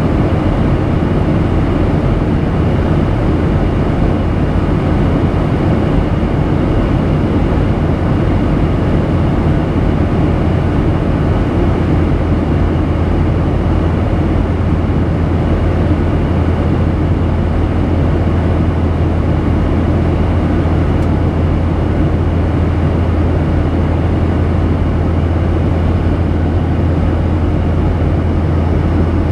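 Steady in-flight cabin noise of a Boeing 737-800 heard from a window seat over the wing: an even rush of engine and airflow noise with a strong low hum underneath.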